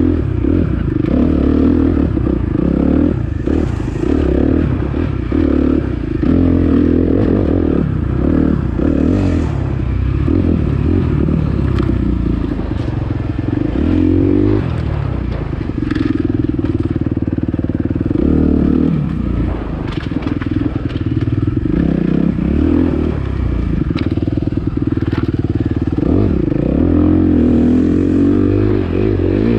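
Dirt bike engine on the move, revving up and falling back again and again as the throttle is opened and shut. Occasional short knocks and clatter from the bike over the rough trail.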